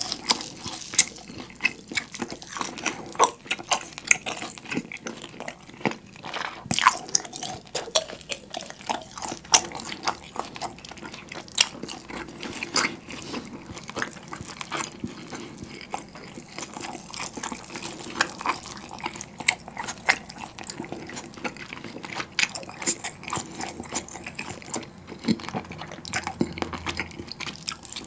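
Close-miked eating sounds of a whole seared beef steak: the meat being pulled apart by hand and chewed wetly, as a dense run of short, sharp clicks and smacks.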